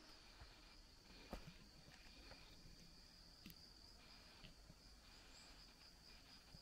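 Faint, steady high-pitched chirring of singing insects, with a few soft footsteps on stone steps, the clearest about a second and a half in.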